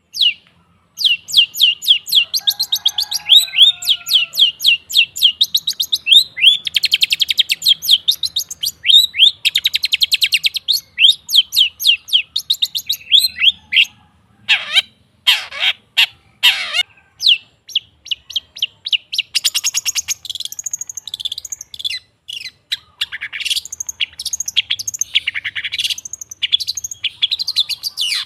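Long-tailed shrike (cendet) singing a fast, chattering song of rapid sharp notes and buzzy trills, broken by three harsh rasping calls about halfway through.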